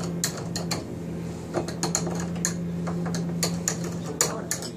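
Scratch awl marking hole positions through a door-handle template: a string of sharp, irregular clicks and taps as the steel point scratches into the wood and knocks against the handle. A steady low hum runs underneath.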